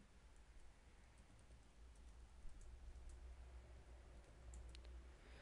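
Faint computer keyboard typing: scattered key clicks, more frequent near the end, over a low steady hum.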